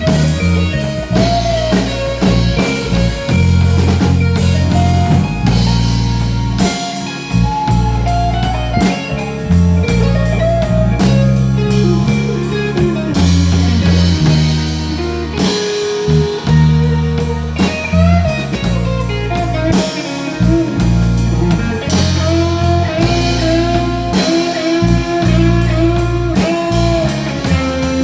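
A blues band playing an instrumental break: a lead guitar line with bending notes over low bass notes and a steady drum beat.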